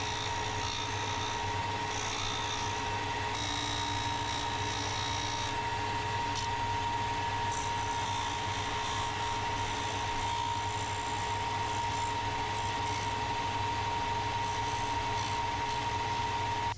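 Electric disc sander running with a steady whine while it sands a carbon fibre plate part down to the line, with grinding noise from the disc against the carbon.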